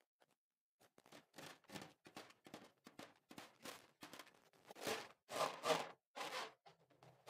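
Slime-filled rubber balloon handled and squeezed between the hands: a run of short, uneven squishing and rubbing noises that start about a second in and are loudest around five to six seconds in.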